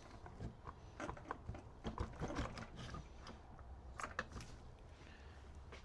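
Scattered light clicks and taps of metal engine parts being worked loose by hand during a two-stroke motorcycle engine teardown, faint and irregular, with a few sharper ticks about two and four seconds in.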